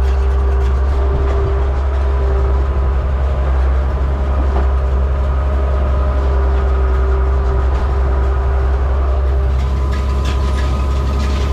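Oliver 1755 tractor engine running steadily under load, heard from inside the tractor's cab: a loud, even low drone with a steady whine above it.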